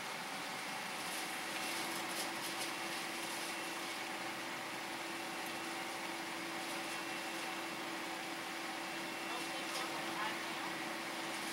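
Steady mechanical hum heard inside a car cabin while it sits idling, with a faint constant tone that comes in about a second in and a few faint clicks.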